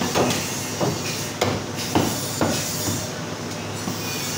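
Meat cleaver chopping a mutton leg on a wooden chopping block: about five sharp chops, roughly two a second, then a pause over the last second or two.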